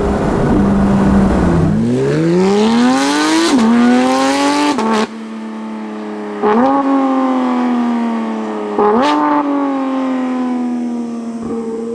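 Porsche 911 GT3's naturally aspirated flat-six through a full Fi exhaust with its valves open, revving hard with pitch climbing steeply for a couple of seconds. The throttle then shuts suddenly. Two sharp throttle blips follow, the second with a crack from the exhaust, before the engine note slowly falls away.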